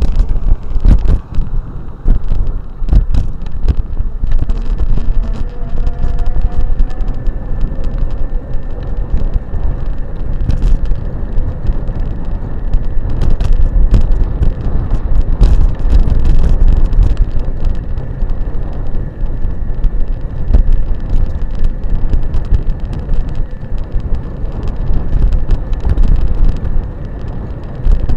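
Electric bike ridden off-road over dirt: loud rumbling wind buffeting on the microphone, with frequent sharp knocks and rattles as it jolts over the rough ground, and a faint steady high whine underneath.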